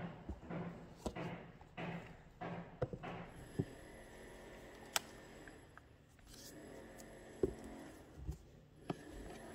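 Cardboard iPad box being opened by hand: a run of short scrapes and rustles as the lid slides off, then scattered clicks and light knocks as the tablet is lifted out of its cardboard tray.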